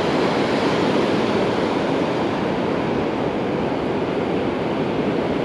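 Ocean surf breaking on the beach: a steady, even wash of waves.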